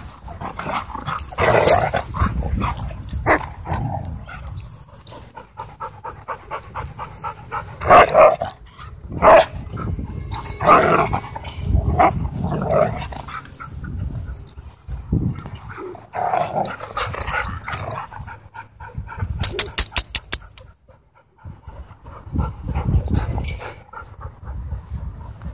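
Huskies and a wolf dog play-fighting at close range: irregular growls, grumbling vocal bursts and panting. About two-thirds of the way through there is a brief run of rapid clicks.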